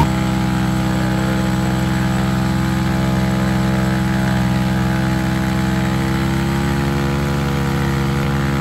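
A pit bike's small single-cylinder engine held at steady revs during a stationary burnout, with the rear tyre spinning in the dirt.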